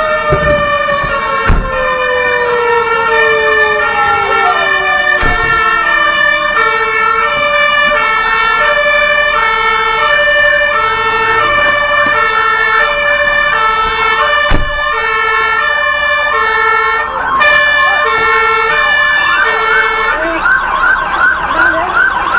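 Several emergency-vehicle sirens sounding together: a hi-lo siren alternating between two tones about once a second, a second siren winding slowly down in pitch over the first eight seconds or so, and a fast yelp siren starting near the end. A few sharp knocks stand out.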